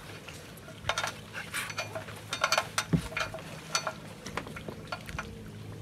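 Irregular light clicks, taps and clinks of small gear being handled, over a faint steady low hum.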